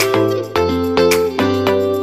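Instrumental background music: a melody of notes changing about twice a second over a low bass line.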